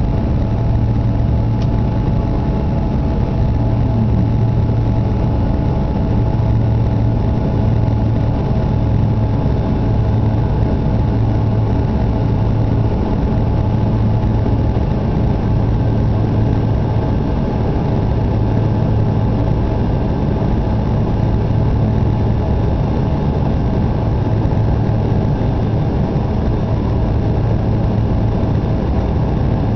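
Cabin noise of a Canadair CRJ regional jet climbing out after takeoff: a steady drone from its two rear-mounted turbofan engines and the airflow, a deep hum underneath with fainter steady tones above.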